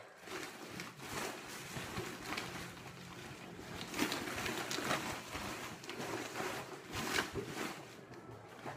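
Footsteps of someone walking back up the stairs, with the rustle of a handheld phone being carried: a run of irregular soft thuds.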